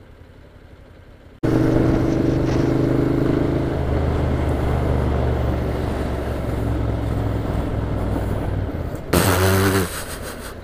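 Motorcycle engine running as the bike rides through traffic past a bus. It comes in abruptly about a second and a half in after a quieter start and stays steady, with a short louder burst near the end.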